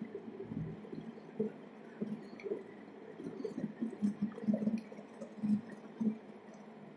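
Muffled, irregular thumps and knocks over a faint hiss: a moving camera's mount and housing being jostled as it travels over asphalt, with the loudest knocks in the second half.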